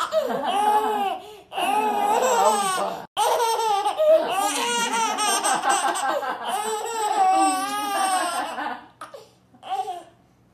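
A baby laughing hard in long bouts of belly laughter, broken by quick breaths, trailing off into a few short giggles near the end.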